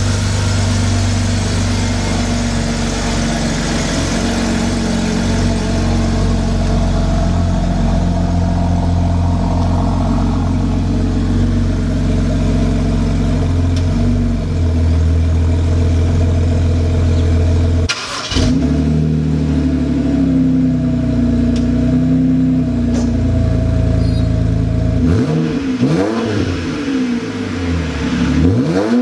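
BMW 330i (E90) inline-six running through a custom dual exhaust: a steady idle while the car rolls out, then revved a few times near the end, the pitch rising and falling with each rev.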